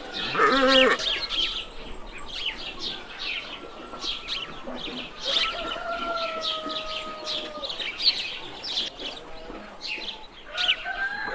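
Birds chirping in quick short notes throughout, with a few longer held calls: a wavering one near the start, one held for about two seconds around the middle, and another near the end.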